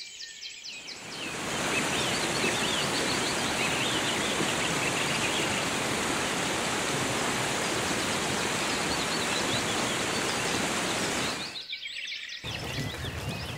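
Waterfall pouring and splashing onto rocks: a steady rushing noise that fades in over the first second or two and cuts off abruptly about eleven seconds in, with birds chirping over it. After a brief gap, a quieter outdoor ambience with bird chirps starts.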